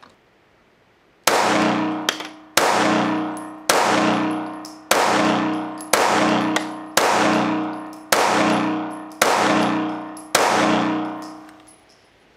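Glock 43 9mm pistol fired nine times at a steady pace of about one shot a second, starting about a second in. Each shot rings on for about a second in the concrete indoor range.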